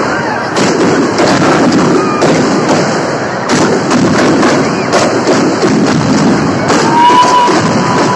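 Tronada: massed firecrackers bursting in a dense, unbroken crackle of rapid cracks and louder bangs. A whistling tone joins about seven seconds in.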